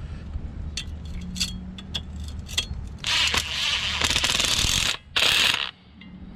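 Power drill driver running in two bursts, about two seconds and then half a second, driving a screw home through a metal joist-hanger bracket.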